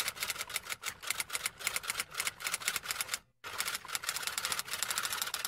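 Typewriter sound effect: a rapid run of key-strike clicks, with a brief break about three seconds in.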